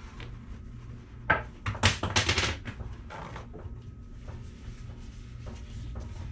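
Brief clatter of hard objects being handled: a quick cluster of sharp knocks and clicks from about one to two and a half seconds in, then a few lighter ticks, over a steady low hum.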